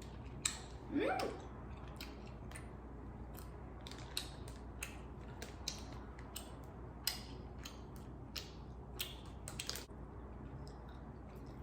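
Close-up mouth sounds of someone chewing a chewy hot pineapple jelly candy: soft, scattered, irregular wet clicks, with a short rising hum about a second in.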